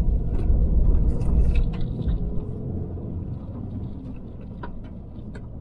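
Low rumble inside the cab of a Ram 2500 pickup with the 6.7 Cummins diesel, driving along. It is loudest in the first two seconds, then eases off, with a few light knocks.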